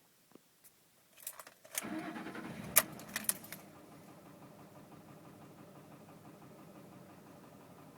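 2005 Ford F-150's 5.4-litre V8 cranking and catching about two seconds in, with a few sharp key-jangle clicks, then settling into a steady idle. The idle carries a tapping knock that the owner suspects comes from a failing cam phaser.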